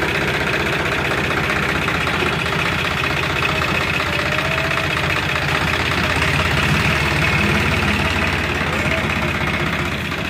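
Diesel tractor engine running steadily as it pulls a trailer loaded with sand, growing a little louder towards the middle.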